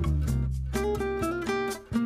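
Background music: strummed acoustic guitar in quick, even strokes over a bass line.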